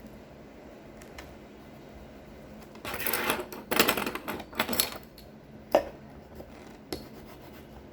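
Handling of trousers and sewing tools: a few short bursts of rustling and clatter, then two sharp clicks.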